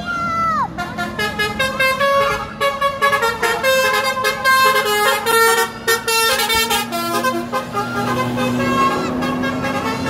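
Basuri musical horn on a passing Putra Dewantara coach playing a quick tune of short, separate notes. A shout rings out at the very start.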